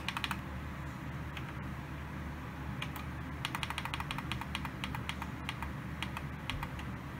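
Repeated clicking of the buttons on a Sony Dream Machine ICF-C1iPMK2 clock radio as the alarm time is stepped forward: a quick cluster of clicks at the start, then a run of several clicks a second from about three to six and a half seconds in.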